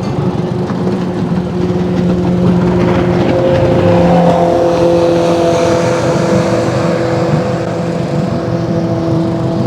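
Boat motor running steadily at a constant pitch, which shifts slightly about four seconds in as the throttle changes.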